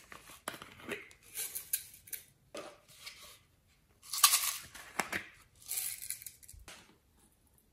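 Hands handling pieces of balloon-moulded clay, making a series of short scraping, rustling noises.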